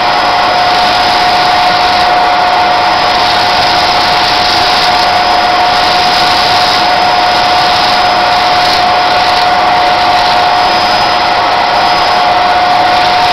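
Electric motor spinning a sanding disc used to grind bone, running steadily with a constant high whine over a loud hiss; the hiss brightens for a few stretches in the middle.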